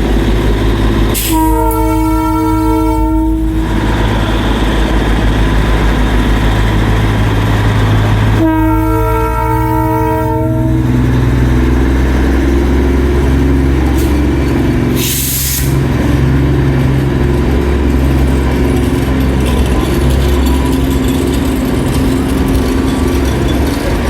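Darjeeling Himalayan Railway toy train locomotive sounding two long horn blasts, each about two and a half seconds and some seven seconds apart, over the steady low running of its engine. A short hiss comes about fifteen seconds in.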